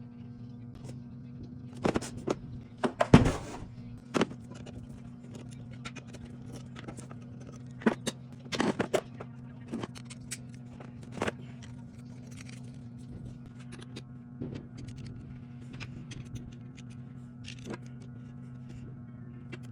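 Hand work on wood for a half-blind dovetail: scattered sharp knocks and taps, with one heavy thud about three seconds in and a second cluster of strikes around eight to nine seconds, over a steady low hum.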